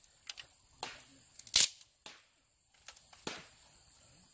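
Dry bamboo sticks snapping and knocking against each other and the rock as they are handled: about five sharp, separate cracks, the loudest about a third of the way in.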